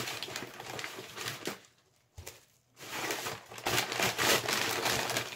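Brown kraft-paper packaging crinkling and rustling as a parcel is opened by hand, in two spells of dense crackling with a short quiet pause and a small knock between them; the second spell is louder.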